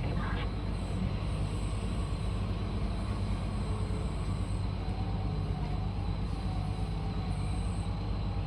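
Heavy mining diesel engines of a Komatsu PC2000 excavator and HD785 dump truck running steadily with a deep, even drone during loading. A faint wavering whine comes in about halfway through.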